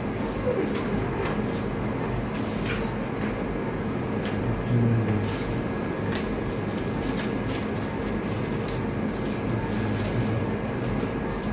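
Steady hum and hiss of operating-theatre machinery, with a faint steady tone, scattered light clicks and a brief louder low sound about five seconds in.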